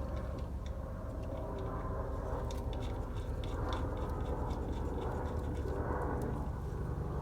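Light metallic clicks of a wrench working the 17 mm oil drain bolt back into a motorcycle's oil pan, coming about three or four a second for a while a few seconds in, over a steady low background rumble.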